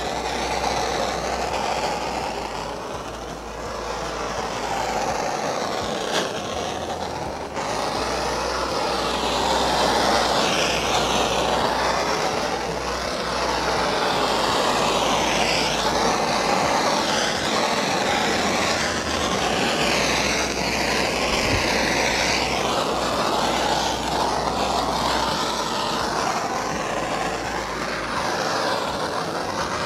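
Handheld gas torch flame hissing steadily, its tone wavering as the flame is swept back and forth over freshly poured epoxy resin to pop air bubbles. A single small click comes about six seconds in.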